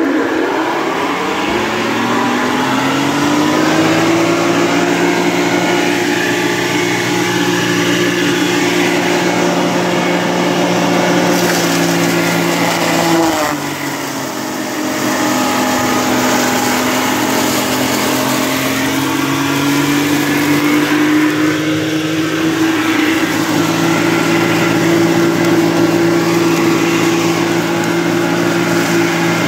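Fodder chopping mill run by a 2.2 kW motor, which the owner calls a bit small for it. It spins up with a rising whine over the first few seconds, then runs steadily. About halfway through its pitch and loudness sag as it takes a load of hay, lucerne and corn stalks, then climb back as it chops through.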